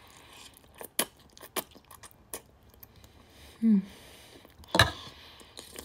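A person chewing a mouthful of cooked broccoli with melted cheese, with scattered short wet clicks from the mouth. About two-thirds through there is a brief low "mm" hum, and a sharper click follows near the end.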